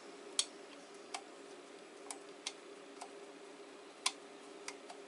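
Light, irregular clicks, about seven in five seconds, of a steel screwdriver blade working a small screw into the Crosman 2240's grip frame and tube. The screw is finicky and not yet threading straight. A steady faint hum runs underneath.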